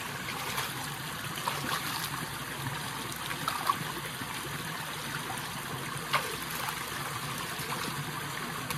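Shallow stream trickling steadily over rock, with a few brief splashes as hands wash in the water.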